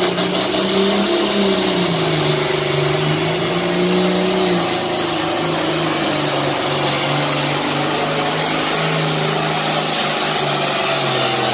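Pulling tractor's engine running hard at high, fairly steady revs while it drags the sled down the track, its pitch sagging slightly a couple of times under load.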